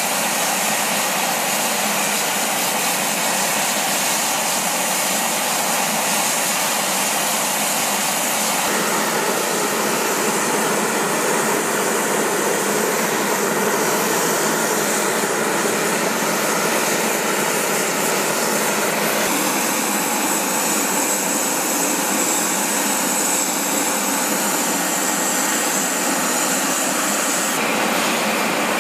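MV-22B Osprey tiltrotor turbine engines running steadily on the flight line, a loud, even rush of turbine noise. A thin high whine rises above it for a stretch in the second half.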